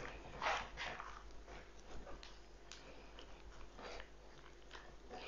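Kitchen tongs lifting and pressing soft, oily roasted red pepper pieces into a glass bowl: faint wet squelches and light taps, a handful scattered through.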